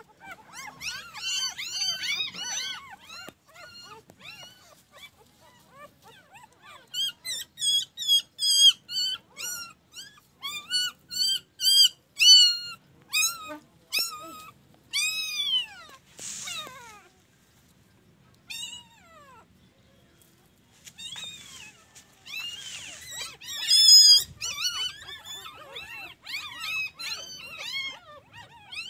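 A puppy whining and yelping in rapid runs of short, high-pitched cries, with a lull of a few seconds past the middle.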